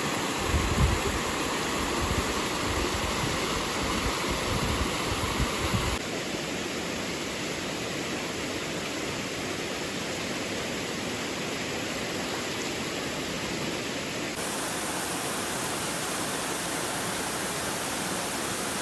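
Steady rush of falling water at a waterfall. A gusty low rumble runs through the first six seconds, and the character of the rush shifts abruptly about six seconds in and again near the end.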